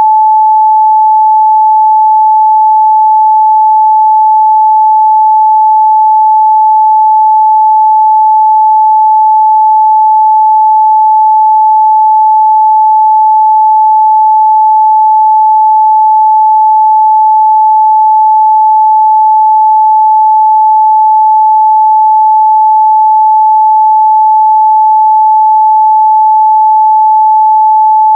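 A steady, loud 867 Hz sine-wave test tone, a single pure pitch held without change.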